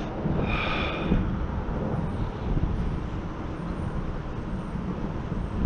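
Steady rumble of road traffic crossing the highway bridge overhead, with a brief high whine about half a second in.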